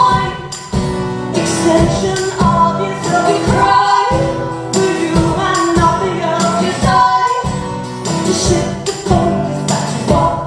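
Live band music: a steady strummed rhythm with sustained sung or instrumental notes, in an instrumental passage between lyric lines.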